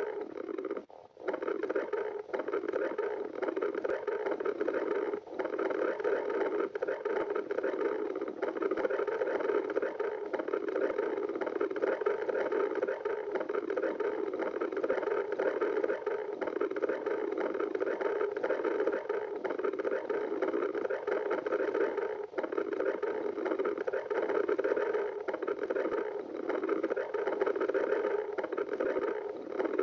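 Stomach growling continuously: a dense, unbroken gurgling rumble from a hungry stomach, briefly dipping about 22 seconds in.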